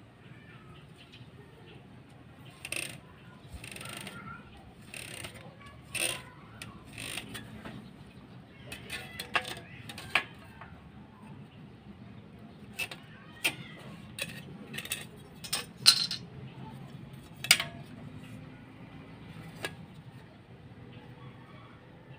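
Scattered light metallic clicks and clinks from a steel square and metal stair-nosing trim being handled and set in place for pencil marking. The clicks come irregularly, and the sharpest ones fall a little past two-thirds of the way through.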